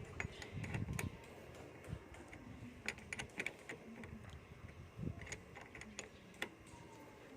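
Irregular light clicks and taps of a hand tool against the car battery's negative terminal clamp as the cable is reconnected.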